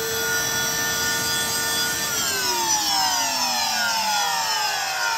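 Fantom Fury upright vacuum's motor running at full speed with a steady whine, then switched off about two seconds in and coasting down, its pitch falling steadily. The owner believes the motor has bad bearings and calls it shot.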